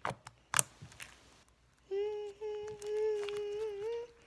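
A few sharp clicks in the first second and a half, then a girl humming one steady note with slight wavers from about two seconds in.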